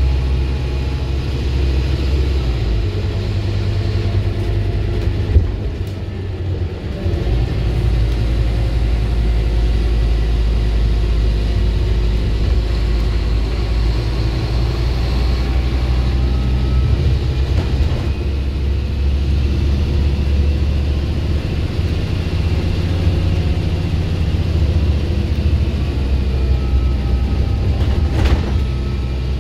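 Scania bus's diesel engine pulling steadily under way, heard from inside the passenger saloon with road rumble. The low engine note dips and picks up again around six seconds in, and a sharp knock sounds just before that dip and again near the end.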